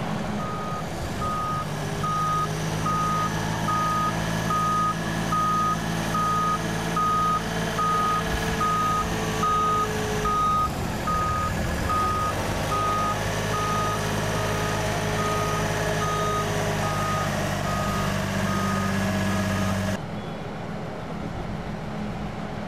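Reversing alarm of an airport ground-support vehicle beeping steadily at one pitch, about three beeps every two seconds, over the low hum of its engine running. The beeps stop near the end.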